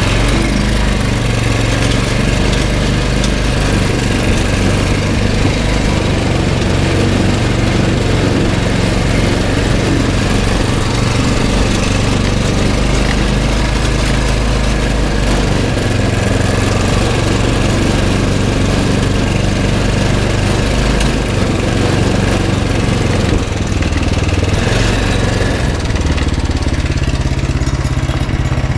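Go-kart's small pull-start engine running steadily while the kart is driven.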